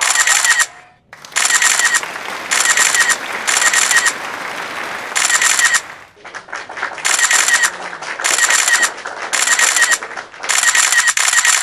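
Loud, harsh crackling noise in repeated bursts of about half a second to a second each, with short breaks about a second in and near six seconds in, then cutting off suddenly.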